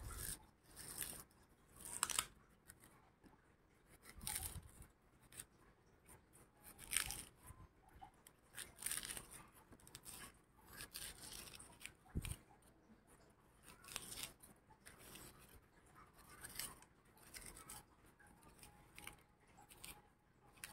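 Faint, irregular scraping and crunching as the flesh and core are scraped out of a pear to hollow it, in short strokes every second or so.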